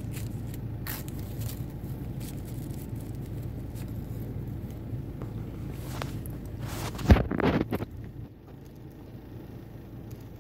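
Steady low hum of a car engine idling, heard from inside the cabin. A single sharp thump about seven seconds in is followed by a second of handling noise, and the deep part of the hum drops away soon after.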